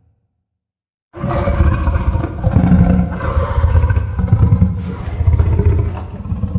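Godzilla Ultima's monster roar sound effect: after about a second of silence, a long, loud, rough roar starts abruptly and rises and falls in a few swells.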